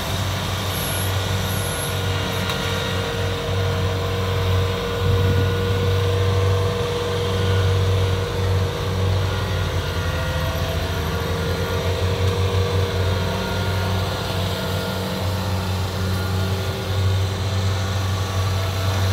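Kubota DC-68G rice combine harvester's diesel engine running steadily while harvesting rice: a continuous low drone with steady higher hums over it.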